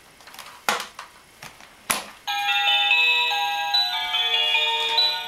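Two sharp handling clicks, then about two seconds in an electronic chime starts, playing a melody of clear, pure notes stepping from one to the next.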